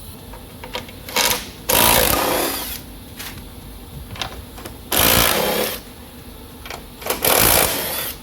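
Cordless power tool spinning off 15 mm nuts from the crash-bar studs: a short blip, then three bursts of rapid mechanical rattling about a second each, with pauses between.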